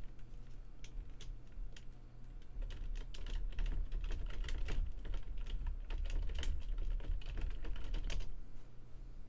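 Typing on a computer keyboard: a few scattered keystrokes, then a fast run of clicks from about two and a half seconds in that stops shortly before the end. A low steady hum sits underneath.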